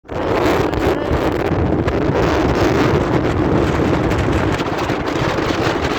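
Storm-force wind blasting the microphone: a loud, dense, rumbling rush that cuts off abruptly at the end.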